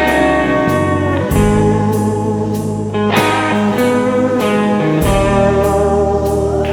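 Instrumental break of a bluesy rock song: guitar chords over bass and drums with a steady beat, no singing.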